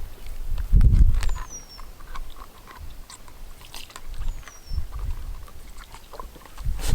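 Thumps, rustling and small clicks from handling a restrained goat, with a high, thin falling whistle that recurs about every three seconds.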